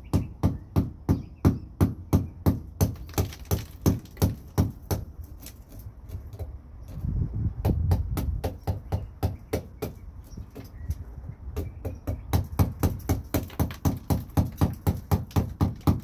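Quick repeated hammer taps on the broken rear window glass of a Toyota Tacoma, about three strikes a second, knocking loose and breaking up what is left of the shattered glass in the frame. A louder, rougher noise in the middle breaks off the tapping, which then picks up again a little faster near the end.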